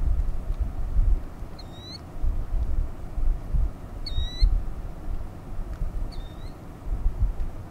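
A bird giving a short, squeaky call three times, about every two seconds, over gusty wind rumbling on the microphone.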